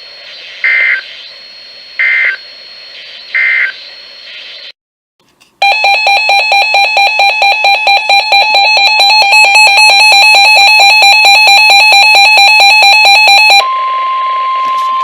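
NOAA Weather Radio: three short bursts of SAME digital data tones over radio hiss, the end-of-message code that closes a warning. After about a second of silence, a loud electronic alarm beeps rapidly for about eight seconds. Near the end it gives way to a steady single-pitch warning alarm tone that heralds the next alert.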